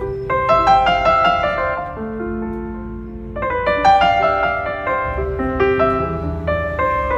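Piano music laid over the footage: struck notes and chords sounding one after another, each fading away after it is played.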